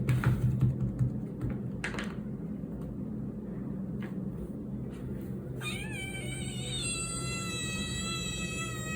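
A cat's long, drawn-out yowl that begins about six seconds in, wavering at first and then held on one steady pitch. A few short scuffs and knocks come before it, over a steady low hum.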